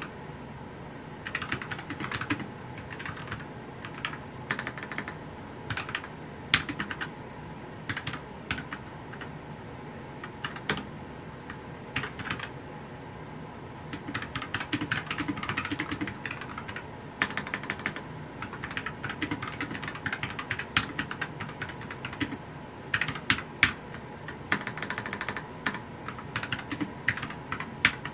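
Fast typing on a mechanical computer keyboard: quick runs of key clicks lasting a second or two, broken by short pauses.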